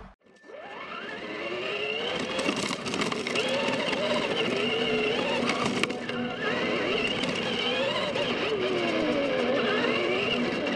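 Traxxas Rustler RC truck's motor and drivetrain whining, the pitch rising and falling again and again with the throttle, over the hiss of its tyres on wet pavement; it starts about half a second in.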